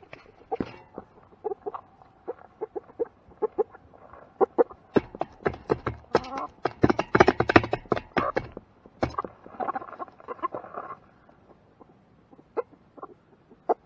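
Farm animals calling, chickens most clearly, over a run of short knocks and clatter that is busiest in the middle and dies down near the end.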